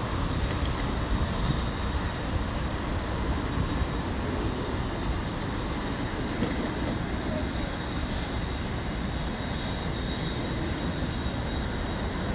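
Steady low drone of outdoor city and construction-site noise, distant diesel machinery and traffic blended together, with no single sound standing out.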